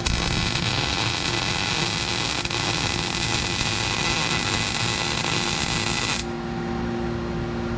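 Welder laying a short bead on sheet-metal bracket, a steady crackling hiss that stops abruptly about six seconds in, leaving a low hum.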